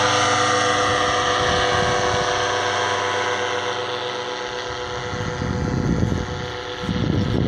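Powered paraglider's engine and propeller droning steadily overhead, fading as it flies away. Low gusts of rumbling noise come up near the end.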